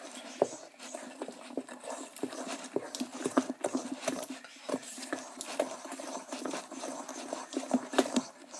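A spoon stirring thick pancake batter with crushed cookie crumbs in a mixing bowl, knocking and scraping against the bowl in quick, uneven clacks, several a second.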